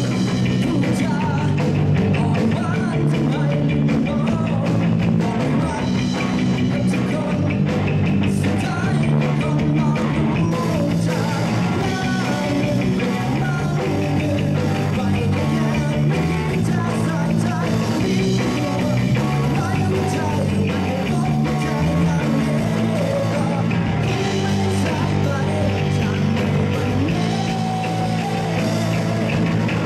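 Rock band playing a song, with electric guitar, bass, drums and singing.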